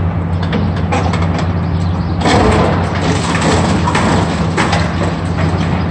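Heavy engine running steadily, with scattered knocks and a burst of rough crunching noise about two seconds in.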